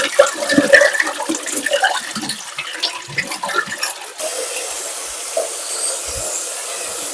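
Water from a tap running into a sink, with irregular splashing for the first few seconds, settling into a steady flow about four seconds in.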